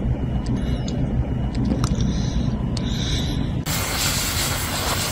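A steady low mechanical rumble with faint high chirps, then an abrupt change about three and a half seconds in to a loud, steady hiss.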